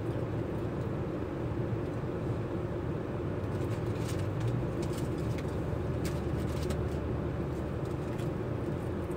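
Steady low drone of an idling truck engine and its air conditioning, heard from inside the cab. A few light clicks come around the middle.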